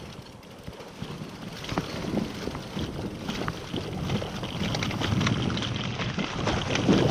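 Scott Genius LT mountain bike riding a rough dirt trail: wind on the microphone and tyre noise, with frequent clicks and rattles from the bike over bumps, growing louder over the first few seconds as speed picks up.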